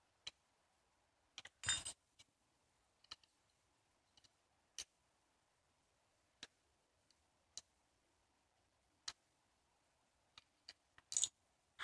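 Scattered small metal clicks and ticks of an Allen key working the grip-panel screws out of a paintball marker's frame. Two louder, slightly longer rattles come about two seconds in and near the end.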